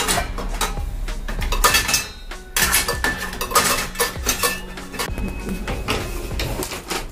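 Stainless steel pots, bowls, plates and lids clinking and clattering against each other and the wire rack as they are loaded into a dishwasher's lower rack. Many knocks come one after another, some ringing briefly.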